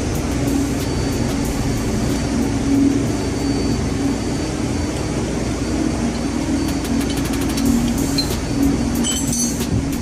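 Steady drone of running engine-room machinery, with light metal clinks and taps from tools and fuel-pump parts being handled, more of them near the end.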